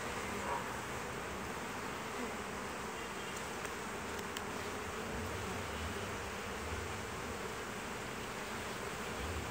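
Steady buzzing of a honeybee colony in an open hive, with a few faint clicks of a metal hive tool prying a frame loose between the top bars.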